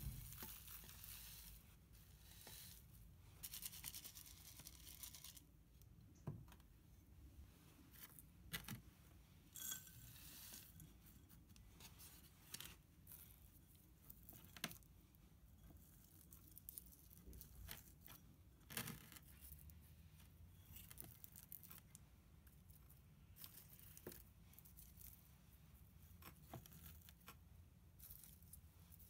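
Faint rustling and scraping of gritty potting mix being poured and pressed into flowerpots by hand, with scattered light clicks and crinkles as dry bulbs and pots are handled.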